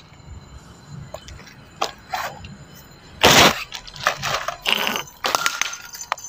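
A plastic sheet crinkling and rustling as it is handled and spread on the ground, with scattered clicks and knocks from handling a torch; one loud crackle about three seconds in, then more rustling bursts.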